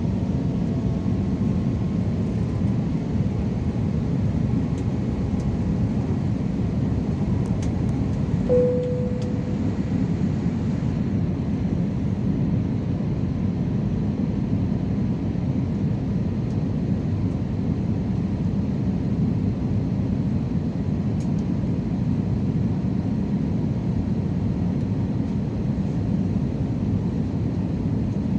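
Steady low rumble of an Airbus A320-216's cabin in flight, the noise of its CFM56-5B engines and airflow. A short tone sounds once, about eight seconds in.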